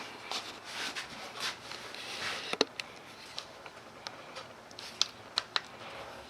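Close rubbing and scraping of the phone being handled and moved around the head, with a few sharp clicks, the loudest about two and a half seconds in and a cluster of three near the end.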